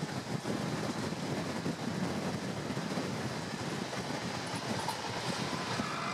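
Train running on the track: a steady rumble of wheels on rails with a dense rattle running through it.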